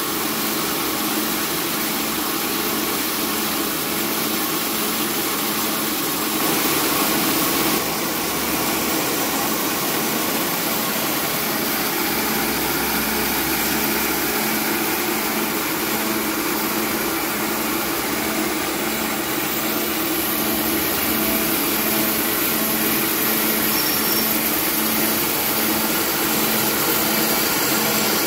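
Small rice milling machine running steadily while hulling and polishing paddy, with a regular throb a little faster than once a second under the grinding hiss of grain passing through.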